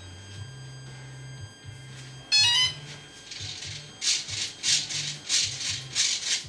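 A short run of electronic beeps rising in pitch about two seconds in, then a series of short buzzing whirs about half a second apart as the electric flap servos in a Parkzone P-47D foam model's wing drive the flaps up and down on the radio. Faint background music runs underneath.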